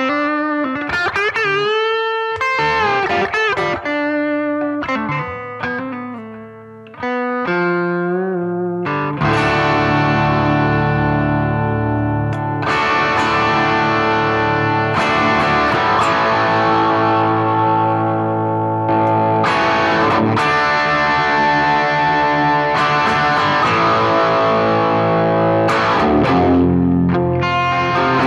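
Electric guitar with P90 pickups, a Gibson Les Paul Special Tribute, played through a BOSS GT-1000's low-gain X-Crunch amp patch. It plays a single-note line with string bends, then sustained strummed chords that change every few seconds.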